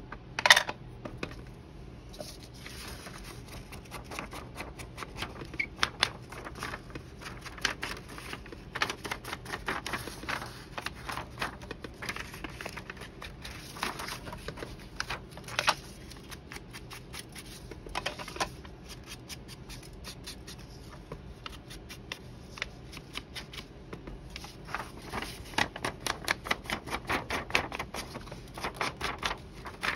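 Ink pad dabbed and rubbed along the edges of a paper page: a long run of quick, soft taps and scuffs, with one sharper click about half a second in.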